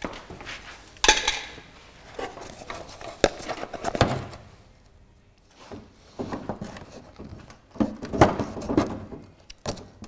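Irregular metal clinks, knocks and scrapes of hand work freeing the headlight bowl and its wiring grommet from a Land Rover Series III front wing. The sharpest knocks come about a second in, around 3 and 4 seconds, and again near 8 seconds.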